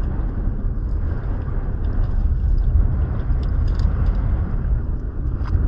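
A steady low rumble of wind and water noise aboard a small fishing boat at sea, with a few faint ticks.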